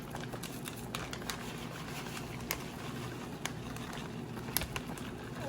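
A few sharp, scattered clicks of a utensil against a pot as a thickening Alfredo sauce is stirred, over a steady low background hum.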